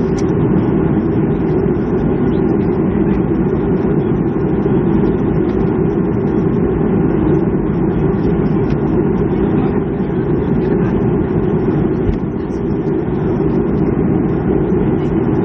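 Steady, loud low drone inside the cabin of a Boeing 737-300 airliner: the CFM56 engines and the airframe heard through the cabin walls, with no distinct events.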